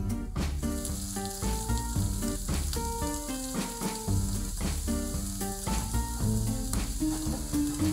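Crabmeat and minced garlic sizzling in hot oil in a frying pan. The sizzle starts as the crabmeat drops in, over light background music.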